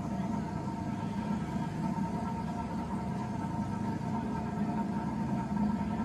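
Circa-1980s Gulf Coast (TAT) 36-inch ceiling fan running at speed, a steady drone with a hum; its bearings are shot.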